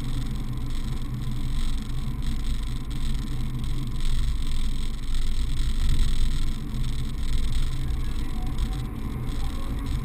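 Porsche 718 Boxster GTS's 4.0-litre flat-six with its stock exhaust, heard from inside the cabin while driving: a steady low engine drone mixed with road noise, swelling and easing a little.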